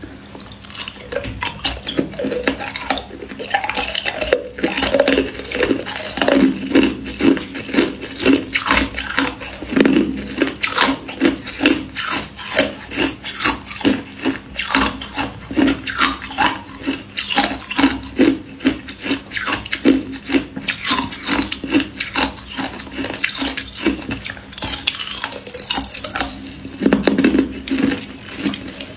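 Hard ice cracking and crunching in quick, irregular crisp snaps as chunks are broken off a frozen block by hand and chewed.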